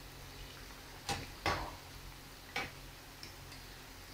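A fork and a metal spoon clicking against a frying pan as beignet sticks are turned in hot oil: three sharp taps, the first about a second in, then a couple of fainter ticks near the end.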